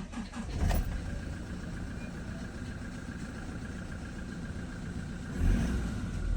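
Toyota Hilux Revo's 2GD 2.4-litre four-cylinder diesel engine starting, catching within the first second and settling into a steady idle, with a louder surge about five and a half seconds in. It now starts with a new crankshaft position sensor fitted, the long-crank no-start fault (code P0338) cured.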